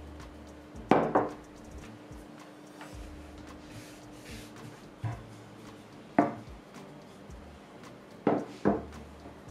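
Rolling pin rolling out puff pastry, knocking against the work surface in sharp single and double knocks, with a faint steady hum underneath.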